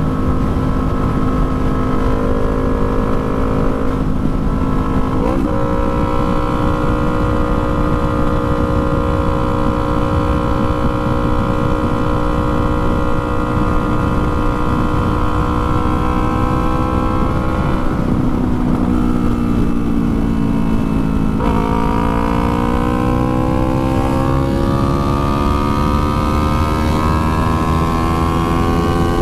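2019 Yamaha R3's 321 cc parallel-twin engine running under way, with a low rush of wind. Its pitch holds steady for long stretches and steps up about five seconds in. It sags for a few seconds, then jumps up about three quarters of the way through and climbs steadily as the bike accelerates.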